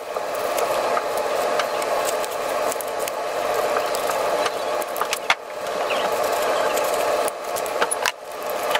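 Scissors snipping through a paper template, a run of small crisp clicks with a few sharper snips, over a steady mechanical hum.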